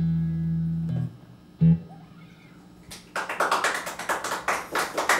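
Electric guitar through an amplifier letting its final low note ring, then cut off about a second in, with a brief low thump shortly after. About three seconds in, a small audience starts clapping, a quick steady run of claps at the end of the song.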